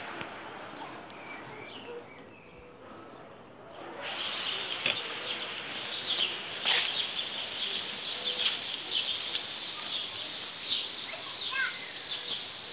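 Many birds chirping together in a dense chorus, which gets louder about four seconds in.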